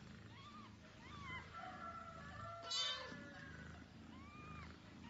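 Newborn kittens mewing: a string of short, thin cries that rise and fall in pitch, with one louder cry near the middle.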